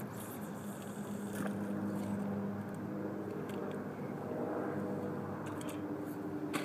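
An engine running steadily, a low hum whose tones shift in pitch about four seconds in, with a couple of brief light clicks.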